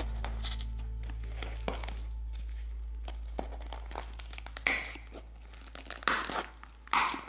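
Paper seal being peeled and torn from a small cardboard tea box: scattered crinkles and crackles of paper, with a few short louder tears near the end. Background music fades out underneath.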